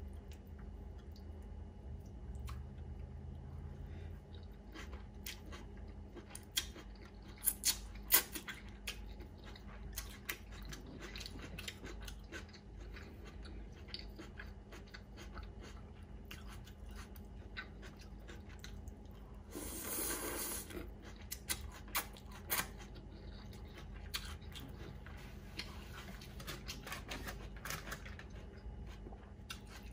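A person chewing a mouthful of pho noodles and herbs. Scattered sharp clicks are loudest about seven to eight seconds in, and a brief louder hiss comes about twenty seconds in.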